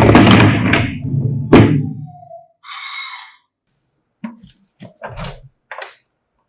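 Hard plastic toy vehicles knocking and rattling: a rumble with two sharp thunks, then a short electronic toy sound, then several light clicks and taps.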